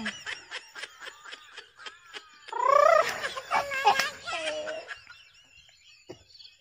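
A boy laughing: quick giggling pulses, then a louder run of high, rising shrieking laughs about halfway through, dying away near the end.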